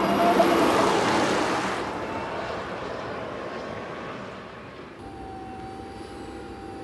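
Toyota GTV concept car's gas turbine engine sounding jet-like as the car drives past: a rushing whine, loudest about half a second in, that fades away. About five seconds in, a quieter, steady high whine takes over.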